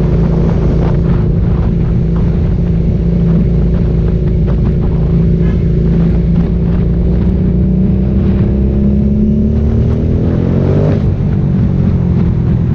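Aprilia Dorsoduro 750 V-twin engine with an Akrapovič exhaust, running steadily at low road speed, then revving up and dropping sharply near the end at a shift up a gear. Wind rumble on the microphone underneath.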